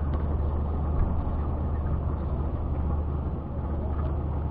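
Boat engine running steadily, a low even drone, with a few faint clicks over it.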